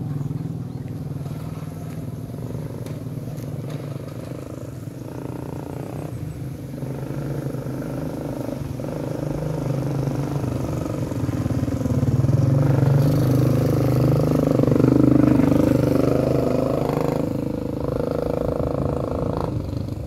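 A small engine running steadily, growing louder from about twelve seconds in with its pitch shifting, then easing off again near the end.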